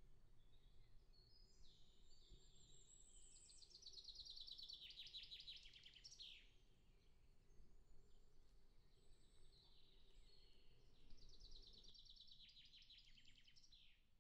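Faint songbird song in two phrases, the second starting about halfway through. Each phrase is a run of high notes stepping upward into a fast trill that ends in a quick falling note. A faint, steady low rumble sits underneath.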